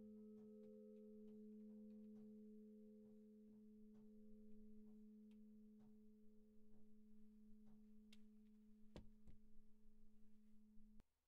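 The hum of a bronze church bell dying away after ringing: a faint steady low tone with fainter higher tones above it, slowly fading. Light clicks run through it, with two soft knocks about nine seconds in, and the hum cuts off suddenly near the end.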